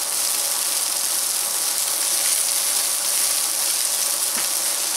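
Asparagus, bacon and onion sizzling steadily in bacon fat in a frying pan while being stirred with a silicone spatula.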